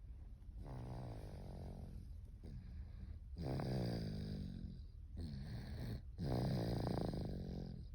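Nine-month-old baby snoring in her sleep: a run of pitched snores, each about a second long, following one another with short gaps between breaths.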